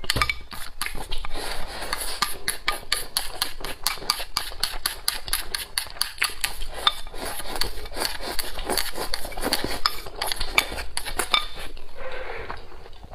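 Wooden chopsticks clicking and scraping quickly and steadily against a ceramic bowl as rice is shovelled into the mouth. Near the end the clicks give way to slurping broth from the tilted bowl.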